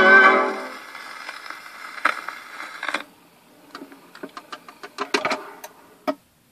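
HMV 99 portable gramophone with its No. 16 soundbox: the 78 rpm record's music dies away in the first second, leaving surface hiss with a couple of clicks as the needle runs into the run-out groove. From about halfway, a string of small clicks and knocks as the soundbox is lifted off the record by hand.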